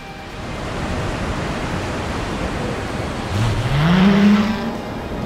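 A motor's pitch rises steadily about three seconds in, then levels off, over a steady rushing noise.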